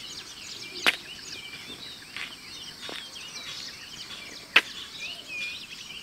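Many small birds chirping and twittering over a faint outdoor background, with two sharp clicks cutting through, about a second in and again past the middle, plus a couple of fainter ones.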